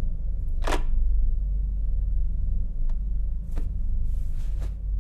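A low, steady rumble runs underneath throughout. A small click comes near the middle, then the handset of a corded desk phone is set down onto its base with a brief clatter near the end.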